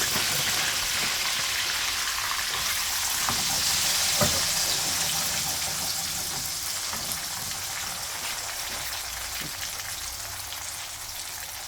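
A second batch of chips deep-frying in hot cooking oil. The oil sizzles with a dense hiss that slowly dies down.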